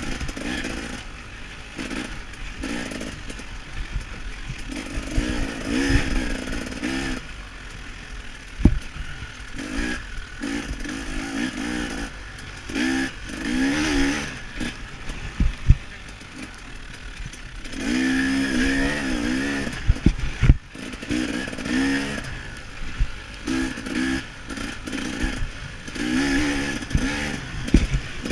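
KTM 300 XC-W two-stroke dirt bike engine revving hard and backing off again and again in short bursts while racing, with a few sharp knocks and clatter from the bike over the rough track.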